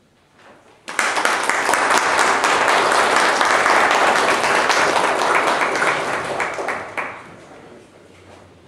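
A small group of people applauding. The clapping starts abruptly about a second in, holds steady, and dies away about six seconds later.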